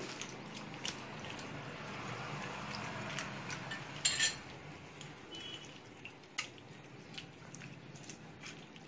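Soaked tamarind squeezed and mashed by hand in a steel bowl of water: soft wet squelching with small clicks, and a sharp metallic clink against the bowl about four seconds in.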